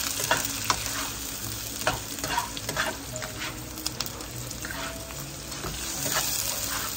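Chopped spring onion, shallot and garlic sizzling in oil in a nonstick wok, being fried until fragrant. A spatula stirs them, scraping and tapping the pan at irregular moments over the steady sizzle.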